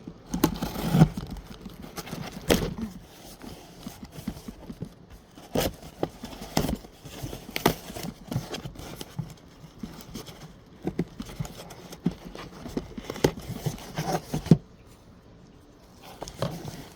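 A cardboard box being opened by hand and its contents unpacked: irregular scrapes, rustles and sharp knocks and taps, with a brief quieter stretch near the end.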